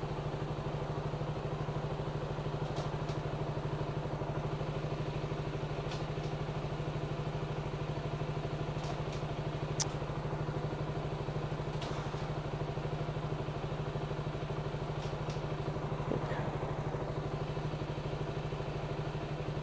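KTM Duke 200's single-cylinder engine idling steadily while the bike stands still, with one brief click about halfway through.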